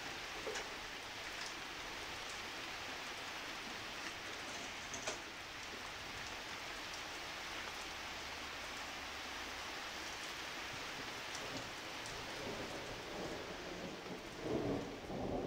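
Heavy thunderstorm rain falling steadily, with a few close drops ticking sharply now and then. About twelve seconds in, a roll of thunder begins to rumble and grows louder toward the end.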